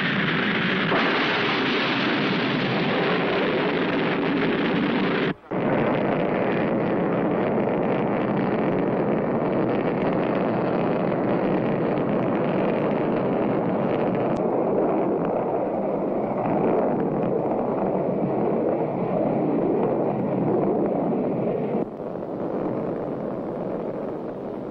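Film sound effect of a rocket lifting off: a steady, loud engine roar with a brief break about five seconds in, which drops somewhat in level near the end as the rocket climbs away.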